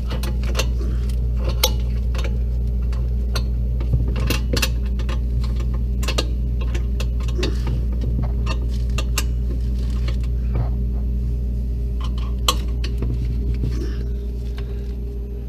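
Irregular metallic clicks and clinks of a hand tool working the screws that hold the refrigerator's ice maker in place, over a steady low hum.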